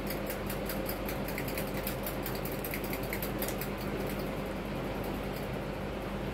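Steady hum of a running machine, with a faint fast ticking at about five a second that fades out about halfway through.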